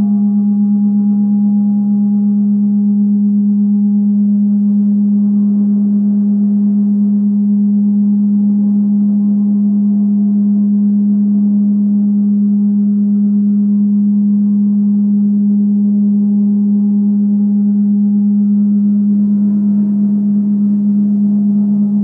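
Gong played in reverse: a steady, loud low hum with fainter overtones drifting in and out above it.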